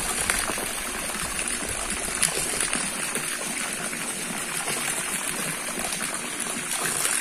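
A jet of water arcing from an overhead pipe and splashing steadily into a fish tank's surface, aerating the water for the tilapia.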